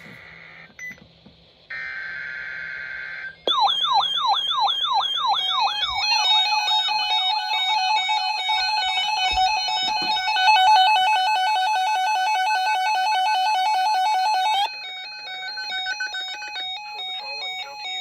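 NOAA weather radio receivers going off for a severe thunderstorm watch. A short buzzing data burst comes first. About three and a half seconds in, a fast warbling siren alarm starts; it becomes steady overlapping alarm tones, and these switch to a rapid alternating beep pattern near the end.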